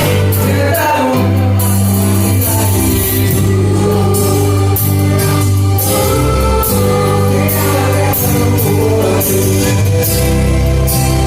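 Live gospel song: a group of singers with a church orchestra, voices singing over sustained bass notes and a steady drum beat.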